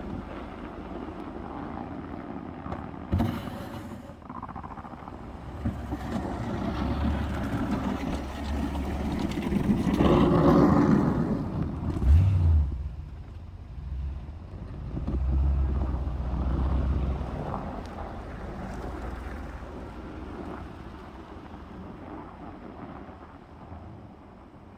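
Toyota Tundra pickup running while plowing snow, its engine rising under load in two swells, with a sharp knock about three seconds in and a thump about twelve seconds in.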